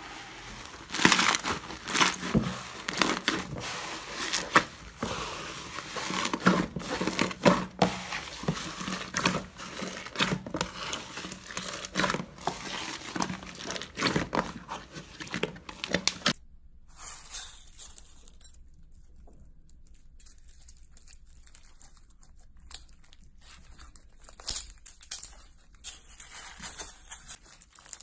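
Slime being squished and stretched by hand, with dense crackling and popping clicks. About sixteen seconds in, the sound changes to quieter, sparser crackles.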